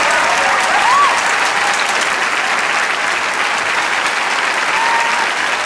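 Studio audience applauding, a dense steady clapping, with a couple of brief voice-like calls over it, about a second in and near the end.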